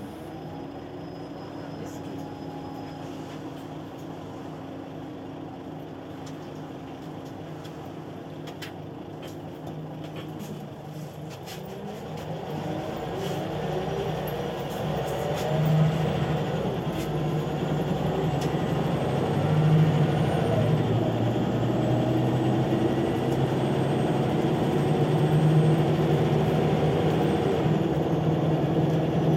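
Scania CL94UB city bus heard from inside the cabin: its engine runs quietly and evenly for about ten seconds, then revs up as the bus pulls away and accelerates through the gears, growing louder with a few surges in the second half.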